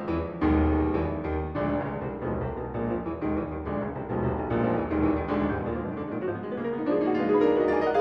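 Piano music playing, a continuous flow of notes over lower bass notes.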